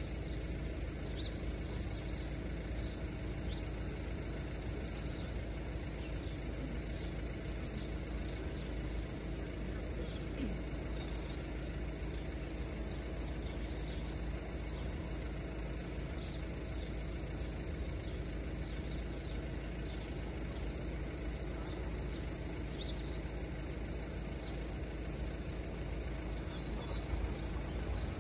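Steady outdoor background noise: a low rumble with a faint steady hum and a few faint, short high chirps scattered through it.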